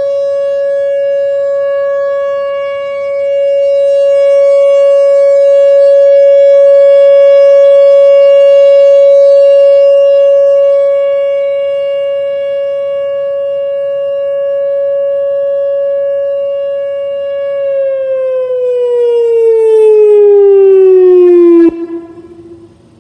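Whelen WPS 4004 electronic tornado siren sounding a steady alert tone during its test, its loudness slowly rising and falling. About 18 seconds in, the pitch slides steadily downward, then the tone stops abruptly near the end with a short echo.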